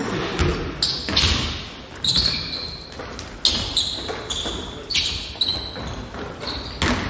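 Basketball drill on a hardwood gym floor: the ball knocking as it bounces and is passed and caught, with sneakers squeaking in short high chirps. All of it echoes in a large hall.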